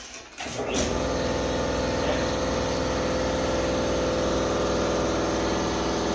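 An electric motor on a shop machine starts about half a second in and then runs with a steady hum.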